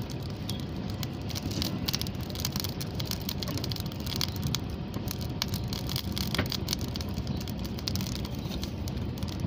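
Small fire fed with PVC solvent glue crackling, with many irregular sharp pops over a steady rushing noise, as it heats a PVC pipe to soften it for bending.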